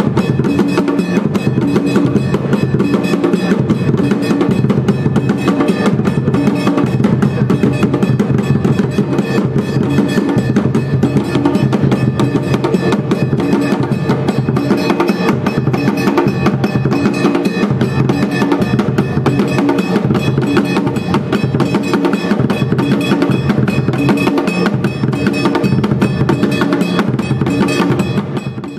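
Drum-led music with a steady, repeating beat and dense, sharp clicking percussion on top, which cuts off suddenly at the end.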